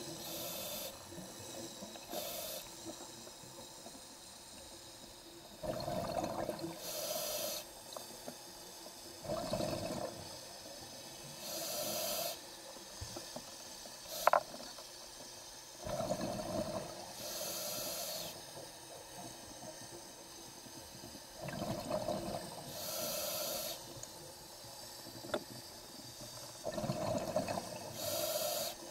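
A scuba diver breathing through a regulator in a slow, even cycle: a hiss on each inhale and a bubbling rush on each exhale. A single sharp click about halfway through.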